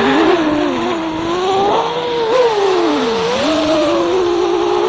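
EMAX Hawk 5 freestyle FPV quadcopter's motors and propellers whining, the pitch sliding up and down with the throttle, dropping low about three seconds in and rising again.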